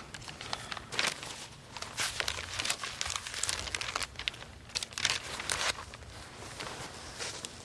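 Paper crinkling and rustling as it is handled, a run of irregular crackles that starts about a second in.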